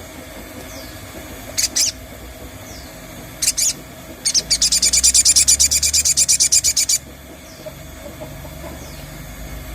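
Sogon songbird singing: two short high calls, then a fast, even trill of about ten notes a second lasting nearly three seconds. The trill is the loudest part. It is a lure song of the kind used to get another sogon to answer.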